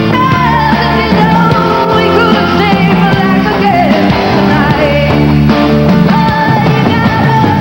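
Live band music: strummed acoustic guitar and drums with a woman singing, the voice wavering and held without clear words.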